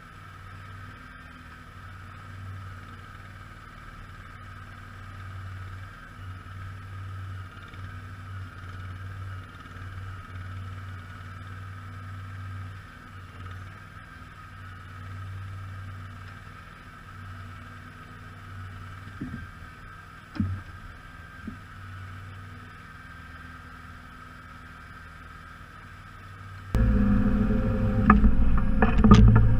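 Garden tractor engine running steadily with a low hum. About 27 seconds in the sound jumps suddenly much louder, with several sharp knocks near the end.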